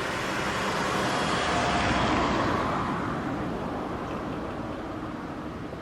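A road vehicle passing by: a steady rush of tyre and engine noise that swells to a peak about two seconds in and then slowly fades.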